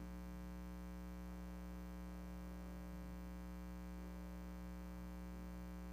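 Steady low electrical hum with faint hiss on the audio feed, unchanging throughout.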